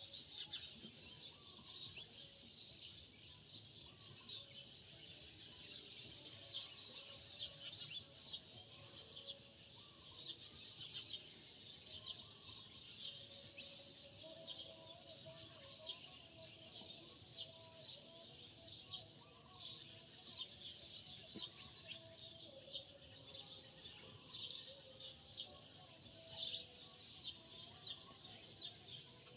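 Many small birds chirping in a dense, continuous chorus of quick, high chirps, with a few lower calls among them.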